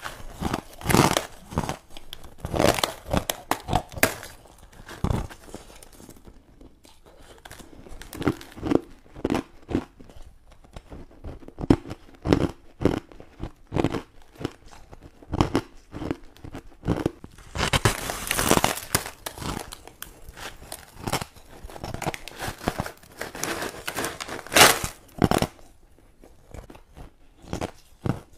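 Crushed ice being bitten and chewed close to the microphone: loud crunching bites in the first few seconds and again about two-thirds of the way through, with quieter crackling chewing in between.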